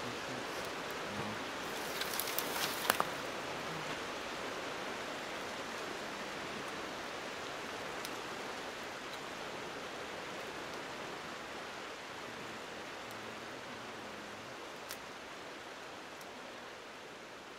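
Steady rushing of water, with a short cluster of sharp crackles and pops from a campfire about two to three seconds in; the rushing slowly fades toward the end.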